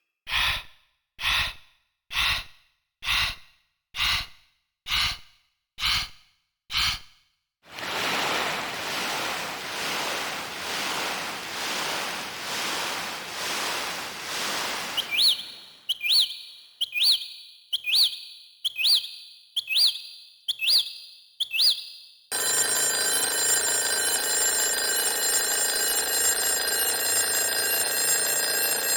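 A run of synthesized General MIDI sound-effect patches, each played as eight notes in turn: short breath-noise puffs about once a second, then a swelling seashore surf wash, then eight bird-tweet chirps, and from about three-quarters of the way in a steady telephone-ring tone.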